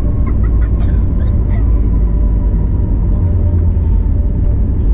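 Loud, steady low rumble inside the cabin of an Airbus A321neo airliner rolling along the ground after landing, with a faint steady whine above it.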